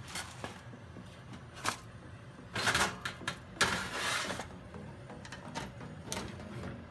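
Handling of a foil-lined baking tray being slid into an oven grill: a few knocks and clatters, with two longer scraping, crinkling stretches in the middle and one more knock near the end, over a steady low hum.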